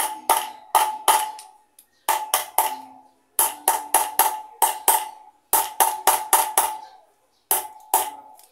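Hammer blows on metal in quick runs of three to five strikes, about twenty in all, each with a short metallic ring: tapping the shimmed bearing into a motorcycle's rear wheel hub.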